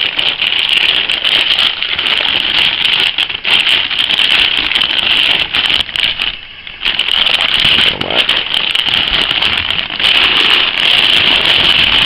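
Plastic packaging crinkling and crackling close to the microphone as it is handled, with a brief lull about six and a half seconds in.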